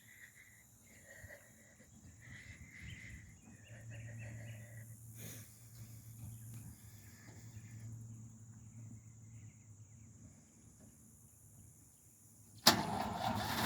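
Faint outdoor chirping in a quiet lull, then near the end the 1949 DeSoto Deluxe's flathead straight-six engine fires up suddenly and settles into a steady run.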